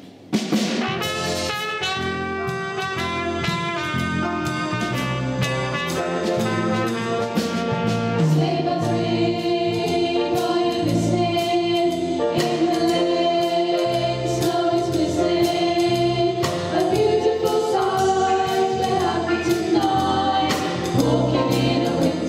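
A small pop band playing live: four teenage singers singing together, backed by drum kit, electric bass, trumpet and piano.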